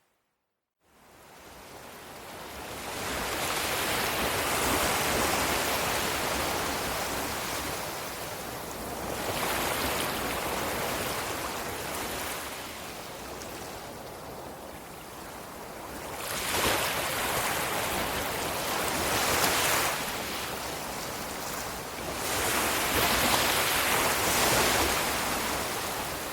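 Ocean surf: waves breaking and washing in, the noise swelling and easing in surges every five or six seconds, after a moment of silence at the start.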